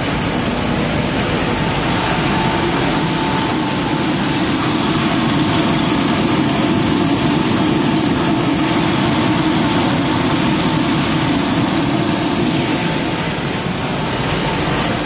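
Machinery of a snack-food extrusion and frying line running, a loud, steady mechanical din.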